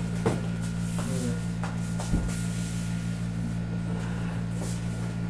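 A man climbing onto a padded massage table: a few brief knocks and creaks as he kneels and shifts his weight onto it, over a steady low hum in the room.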